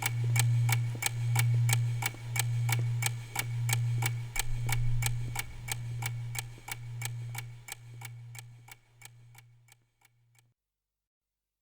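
Clock-like ticking, about four even ticks a second, over a low pulsing hum that swells about once a second; both fade away and stop about ten seconds in.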